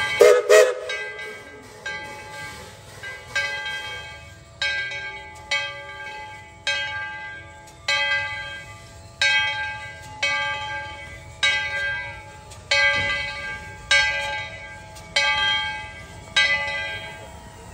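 Bell of 1917 Baldwin narrow-gauge 4-6-0 steam locomotive ET&WNC No. 12 ringing steadily, about one stroke a second, each stroke ringing on and fading before the next. It is the locomotive bell rung as the train gets ready to move off.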